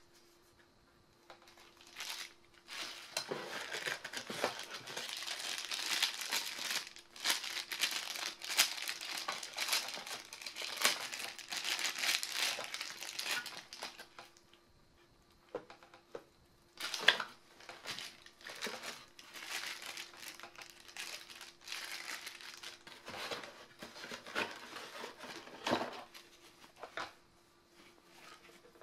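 Plastic packaging bags crinkling and rustling as hands unwrap camera accessories and a cable from their bags, in irregular bursts with a short pause about halfway and a sharp click just after it.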